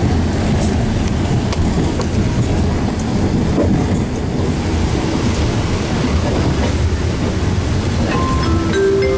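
Alishan Forest Railway passenger coach running, heard from inside: a steady low rumble with a few faint clicks of the wheels over the rails, the train pushed by a diesel locomotive at the rear. About eight seconds in, a few short steady tones come in, stepping upward in pitch.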